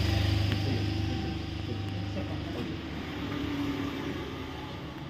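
A low rumble that fades away, under faint, indistinct voices of people gathered in a room.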